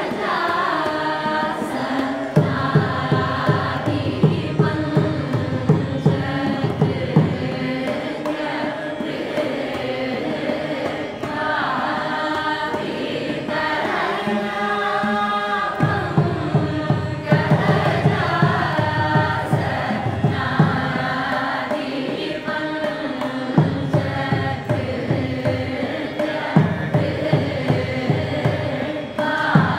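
A group of voices singing a Carnatic kriti together in raga Shankarabharanam. Mridangam strokes join about two seconds in, drop away for a stretch in the middle, and come back.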